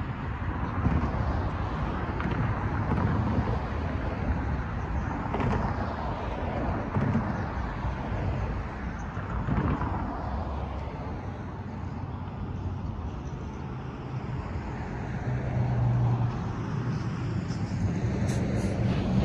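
Road traffic: cars drive one after another over a railroad crossing, each swelling and fading as it passes. Near the end a truck's engine hum grows louder as it approaches.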